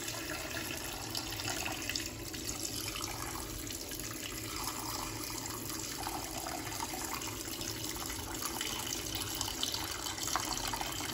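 Kitchen tap running into a cooking pot full of raw pork, the water splashing over the meat as it is rinsed. The flow is steady.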